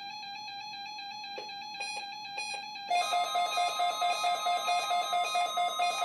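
First Alert WX-167 weather radio's alert alarm starting about three seconds in: a beep pulsing about four times a second over a steady tone. Before it, a steady droning tone and a few clicks.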